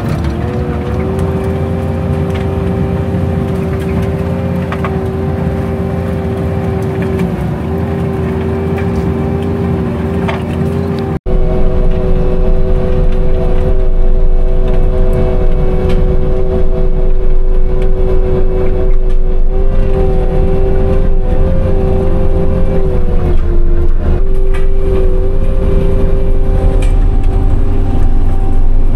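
Skid-steer loader running a hydraulic forestry-rotor subsoil mulcher: a steady engine and hydraulic whine held at a constant pitch over a low rumble. It cuts off abruptly about eleven seconds in and comes back louder with more low rumble, the pitch dipping briefly later on.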